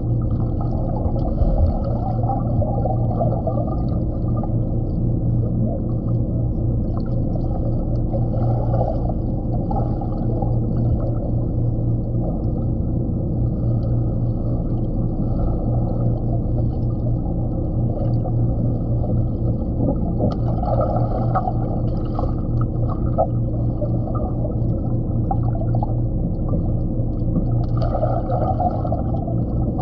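Muffled underwater sound picked up by a submerged GoPro Hero 7 White: a steady low hum and rush of water with everything above the lower mids dulled, swelling briefly a few times, near 9 s, 21 s and 28 s in.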